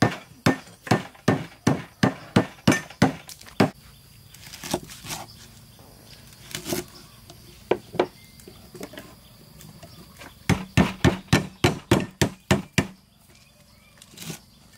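Cleavers chopping carrots and lemongrass on thick round wooden chopping blocks: a quick even run of chops, a stretch of scattered single strokes, then another faster run near the end.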